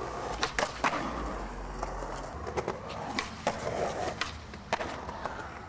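Skateboard wheels rolling over concrete, with several sharp clacks of the board and the metal trucks grinding along the edge of a concrete ledge a few seconds in.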